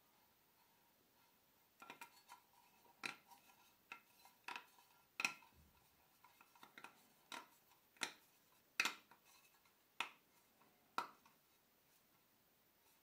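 Thin stamped sheet-metal coin shells clicking and clinking as they are worked and pressed together by hand: about a dozen sharp metallic clicks with a short ring, irregularly spaced, starting about two seconds in and stopping a couple of seconds before the end.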